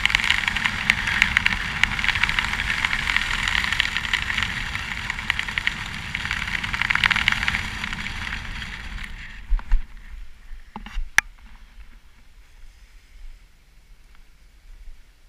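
Wind rushing and buffeting over the microphone of a skydiver's camera during a parachute canopy descent. It fades out about nine seconds in, at touchdown, and is followed by a few sharp knocks and thumps from the landing.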